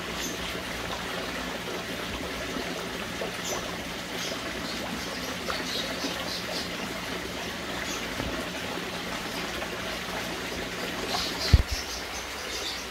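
Koi pond water trickling and splashing steadily. A single short, loud thump comes near the end.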